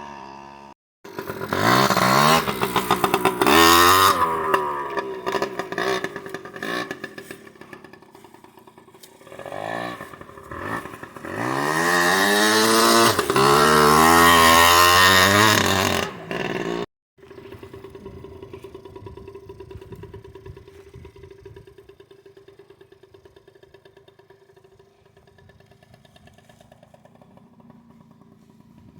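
Jianshe Coyote 80 dirt bike's two-stroke engine accelerating hard, its pitch rising in repeated sweeps. It cuts off abruptly about seventeen seconds in, and a fainter steady engine sound follows, slowly fading.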